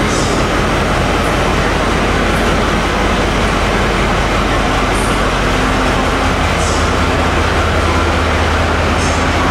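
A standing passenger train's engine running steadily, a loud even noise with a low hum underneath.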